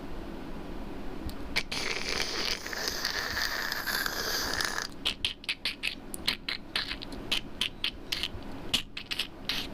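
Campfire hissing for a few seconds, then crackling with a quick, irregular run of sharp pops and snaps.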